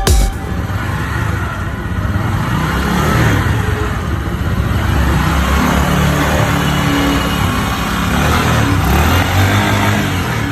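Boxer motorcycle's small single-cylinder engine running, its speed rising and falling a little.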